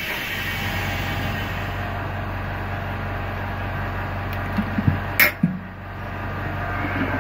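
Screen laminating machine running its vacuum-and-press cycle with a steady mechanical hum, and a few light knocks about five seconds in.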